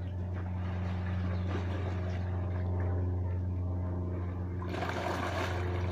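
Pool water splashing, with a louder splash about five seconds in, over a steady low drone.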